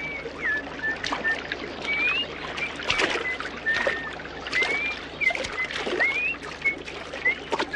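Birds chirping in short whistled notes, some rising and some falling, over a running stream, with splashes and knocks as bare feet step through shallow water and over rocks.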